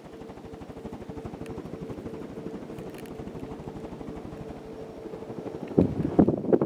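Fasco Centennial ceiling fan running on high speed, its blades moving air in a rapid, even, pulsing whoosh over a thin steady motor hum. A few loud knocks come near the end.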